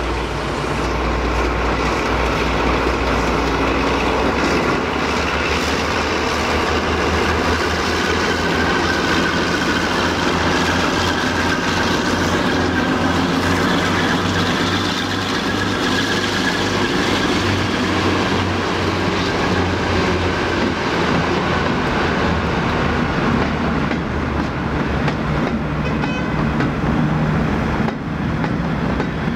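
Convoy of heritage diesel locomotives passing slowly at close range, led by Class 52 'Western' D1015 with its twin Maybach V12 engines, then a Class 37 and a Class 40: diesel engines running with steady wheel clatter over the rail joints.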